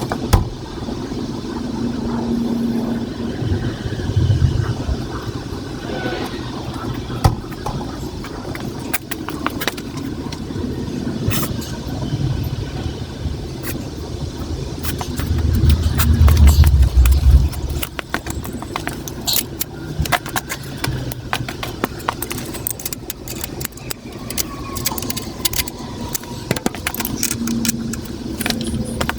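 Metal clinks and rattles of a motorcycle drive chain and hand tools being handled, over a steady low rumble. A louder low rumble swells for a couple of seconds about halfway through.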